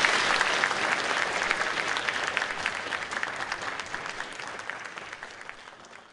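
Audience applauding, a dense clatter of clapping that fades out steadily until it is almost gone at the end.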